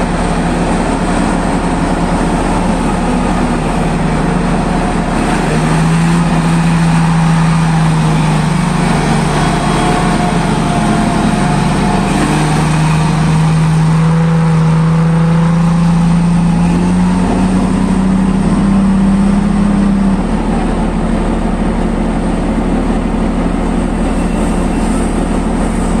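Heavy diesel engines of mining machinery running: a PC2000 mining excavator loading mud into a haul truck. The engine note rises and holds higher for stretches in the middle as the machine works under load, then settles back about 20 seconds in.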